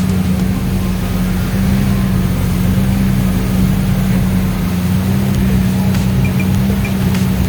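Motorboat engine running at a steady speed, one constant low drone.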